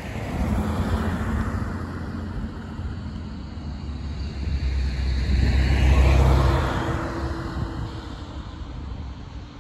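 A vehicle passing by with a low engine drone. It grows louder to a peak about six seconds in, then fades away.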